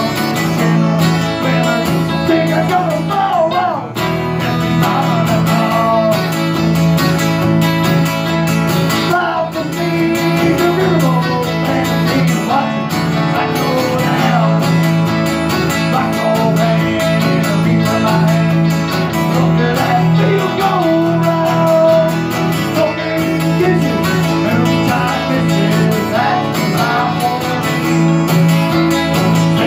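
Small acoustic string band playing live: strummed acoustic guitar under a picked melody line, without pause.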